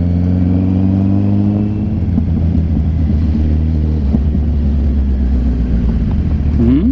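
Kawasaki Z900's inline-four engine running under way, rising slowly in pitch over the first two seconds as the bike gathers speed, then holding steady.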